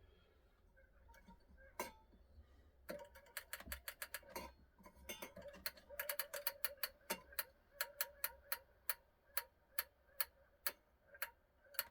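Seiko time-dater clock movement ticking with sharp metallic clicks. After a few scattered clicks they come fast and uneven, then settle into a steady tick of about two a second.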